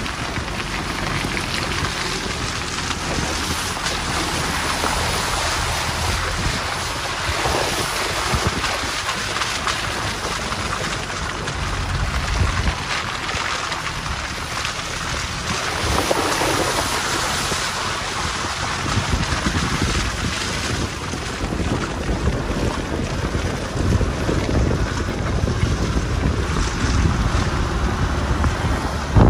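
4x4 off-road vehicle driving on a rough track: a continuous low rumble of engine and tyres under a rushing noise, with wind buffeting the microphone.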